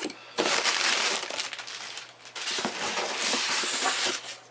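Packing material being handled and pulled out of a parcel, crinkling and rustling loudly in two long stretches with a short break between them.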